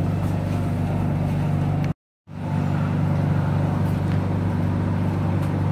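BTS Skytrain Silom line train running, a steady low hum. The sound cuts out completely for a moment about two seconds in.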